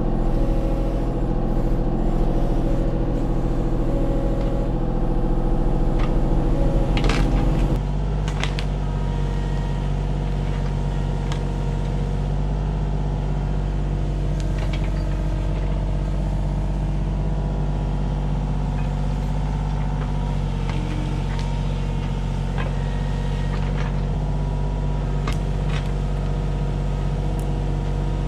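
Kubota U35-4 mini excavator's three-cylinder diesel engine running steadily. About eight seconds in it drops to a quieter, lower note, with a few sharp knocks over the engine.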